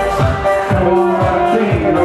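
Live techno contra dance music: a steady electronic kick drum about twice a second under a held, sustained melody line.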